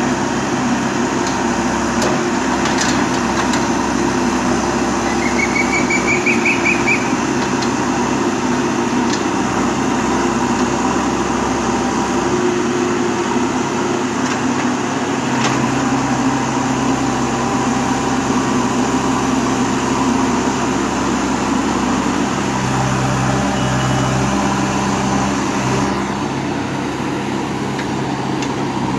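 Bulldozer's engine running steadily under load, its pitch shifting slightly now and then.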